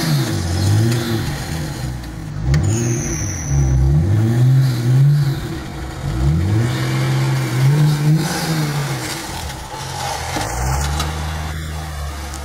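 Engine of a crash-damaged Nissan Skyline GT-R, revved again and again, its pitch rising and falling about six times. For the last couple of seconds it holds a steadier, lower note.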